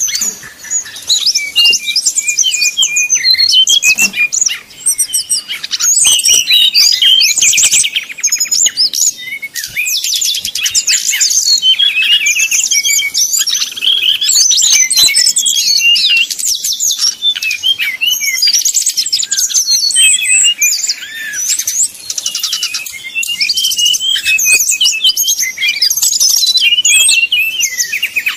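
Brown-chested jungle flycatcher (sikatan rimba dada coklat) singing its combative 'fighting' song: a loud, almost unbroken stream of fast high trills and twittering, slurred notes, with only a few brief pauses.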